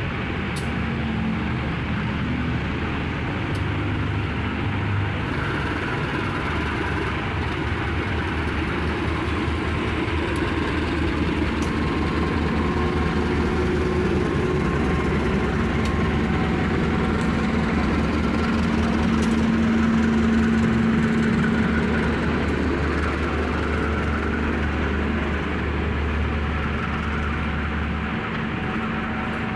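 Bogowonto passenger train running on the rails, its diesel locomotive giving a steady droning hum over a continuous rumble of wheels and cars. The sound swells to its loudest about two-thirds of the way through, then eases slightly.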